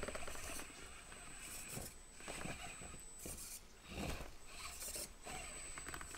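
Axial SCX24 micro RC crawler climbing over logs and rocks: its small electric drive motor and gears whir in short spurts as the throttle is blipped, with the tires scraping and clattering on the obstacles.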